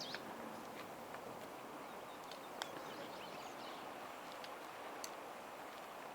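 Faint outdoor ambience on a rocky trail: a steady hiss with a few scattered sharp clicks of footsteps, and faint bird chirps.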